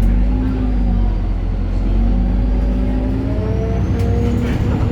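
BredaMenarini Avancity Plus city bus with a Deutz Euro 5 diesel and ZF gearbox running under way, heard on board. A heavy low rumble carries humming tones that break off and come back, and a faint high whine rises through the second half.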